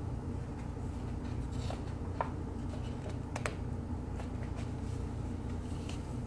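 Steady low room hum with faint rustles and a few soft clicks as a paperback picture book is handled and its pages turned.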